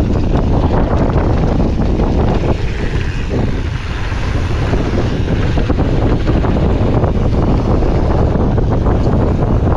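Wind buffeting an action camera's microphone, mixed with a Commencal Supreme DH29 downhill mountain bike's knobby tyres rolling over loose gravel and dirt, with a constant clatter of rattles and knocks from the bike over the rough trail. The noise eases briefly about four seconds in.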